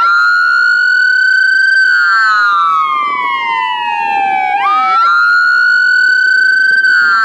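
Sirens of airport crash tenders wailing: the pitch climbs quickly, holds high for about two seconds, then slides slowly down, and the cycle repeats twice. Two sirens sound together, splitting slightly apart in pitch as they fall.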